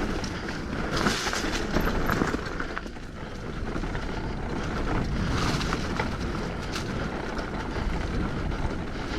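Hardtail mountain bike rolling down dirt singletrack: steady tyre and ride noise with scattered rattles and knocks from the bike, and wind on the microphone.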